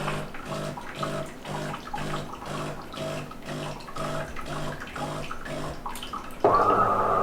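De'Longhi Eletta ECAM44.660.B bean-to-cup coffee machine running its start-up rinse cycle: its pump hums in short pulses about twice a second, then near the end switches suddenly to a louder steady hum with water running through.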